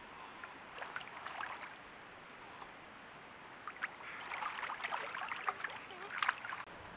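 Eurasian beavers moving and swimming in shallow water, making small splashes, drips and lapping in bursts: a short spell about a second in and a longer, louder spell from about the middle to near the end.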